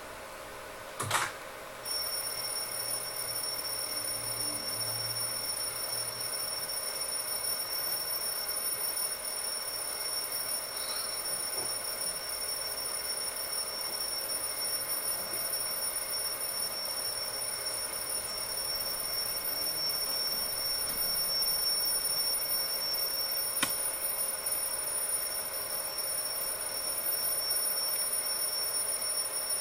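Alarm clock ringing without a break from a film's soundtrack played back in the room, starting with a click about a second in and running on with a steady high ring.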